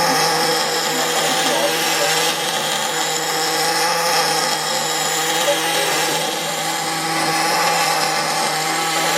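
Machinery running steadily: a loud, even whirring noise with a constant hum.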